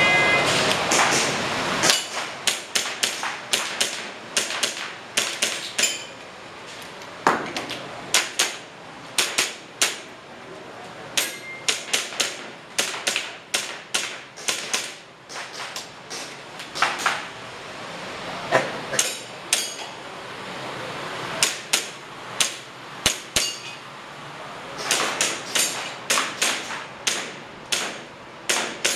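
A shooter firing an airsoft pistol through an IPSC course of fire: dozens of sharp shots, mostly in quick pairs and short strings with brief pauses between target arrays, begun by a short electronic shot-timer beep at the very start.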